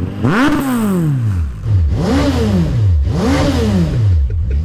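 Suzuki Bandit motorcycle inline-four engine, fitted in a small van, free-revved three times in neutral. Each rev climbs quickly and falls straight back to idle.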